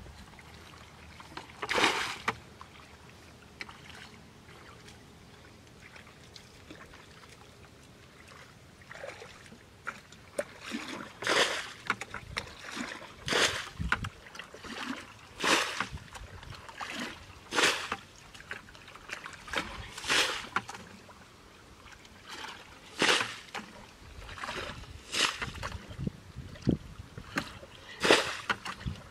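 Muddy water bailed from a shallow ditch with a plastic bucket: each scoop is flung out with a short splash. One splash comes early, then a run of them about every one to two seconds from about a third of the way in.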